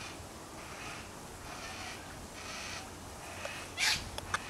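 Yellow-tailed black cockatoos calling, a faint call repeating about once a second, then one loud harsh screech near the end, followed by two sharp clicks.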